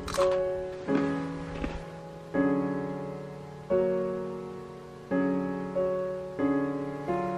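Background piano music: slow chords struck about every second and a half, each ringing and fading before the next. A couple of faint clicks in the first two seconds.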